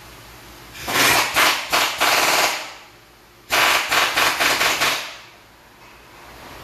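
Pneumatic impact wrench rattling in two bursts of about one and a half to two seconds each, a second apart.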